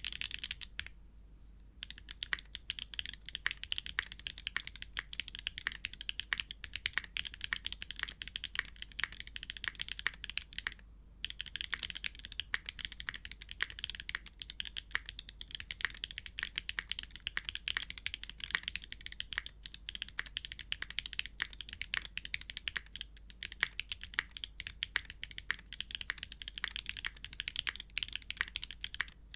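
Steady fast typing on a custom TKL mechanical keyboard: factory-lubed Kailh Calligraphy switches in an aluminium plate on an O-ring gasket mount, under GMK keycaps, giving dense rapid clicky-clacky keystrokes. Typing starts about two seconds in and breaks off briefly around the eleven-second mark.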